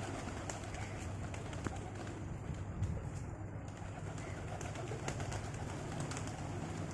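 Pigeons cooing with low, steady calls.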